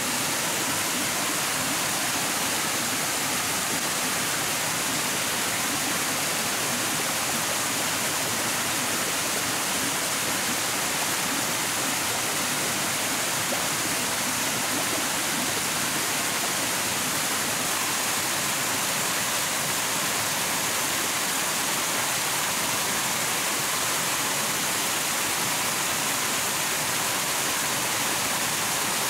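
Steady rushing water, an even hiss with no breaks or separate events.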